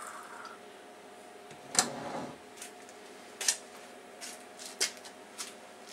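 Faint steady machine hum with a handful of short, sharp clicks and light knocks spread over a few seconds, the loudest about two seconds in.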